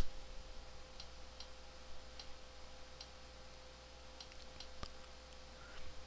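Faint, irregularly spaced clicks of someone working at a computer's controls, over a low steady electrical hum.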